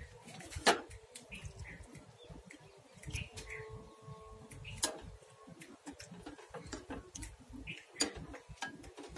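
Three sharp clicks, with several softer ticks between them, over faint short bird chirps.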